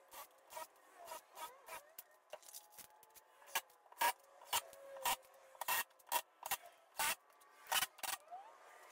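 Cordless driver running screws into plywood in a quick series of short bursts, louder in the second half.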